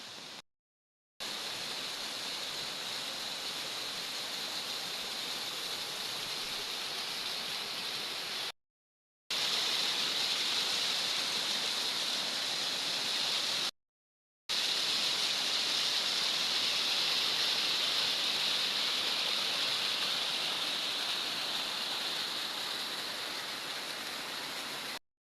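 Waterfall rushing with a steady hiss. The sound drops out into complete silence for under a second, three times.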